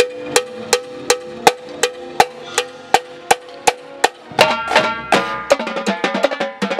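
Marching drumline snare drums playing steady unison strokes, about three a second, then from about four seconds in a denser drumming pattern with low bass-drum tones joining.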